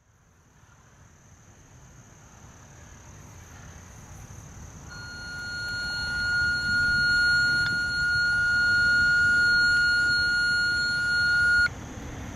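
A steady electronic alert tone over a radio: one high pitch, held for about seven seconds without wavering and cut off sharply, the attention tone that comes before a county dispatch broadcast. A low outdoor rumble runs underneath.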